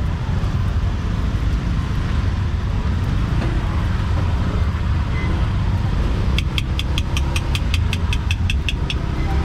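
A steady low engine rumble, like a motor vehicle idling close by. For about three seconds near the end it is joined by a quick, even run of sharp metallic ticks, about five a second.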